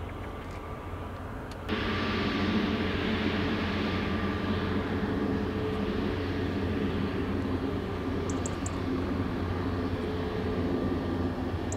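Airliner engines running steadily: a wide rushing noise with steady humming tones. The sound jumps abruptly louder about two seconds in.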